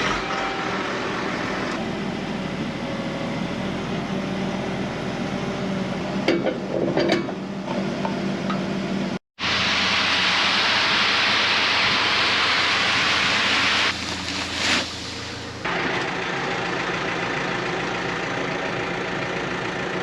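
Twin-motor 'silent' air compressor with a 50-litre tank running with a steady hum. About nine seconds in the sound cuts out for a moment, a loud steady hiss follows for about five seconds, and then a steady mechanical hum returns.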